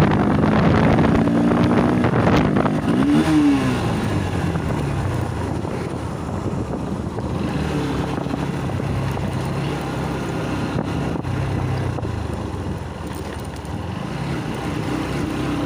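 Yamaha R15 motorcycle with a full-system exhaust running under way, with heavy wind rush on the helmet-mounted phone. The engine revs rise and fall about three seconds in, then it settles to a steadier note.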